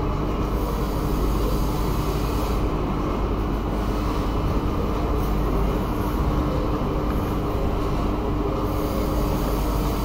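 Steady low mechanical rumble with a constant hum running under it, unchanging throughout.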